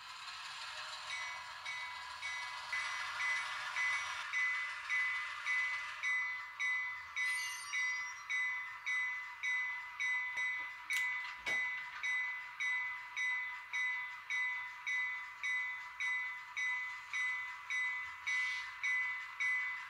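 Model diesel locomotive's sound decoder ringing the engine bell, about one and a half strokes a second, starting about two seconds in. There is a single sharp click about halfway through.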